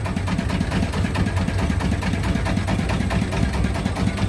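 Engine of a small fishing boat running steadily under way, with a fast, even beat.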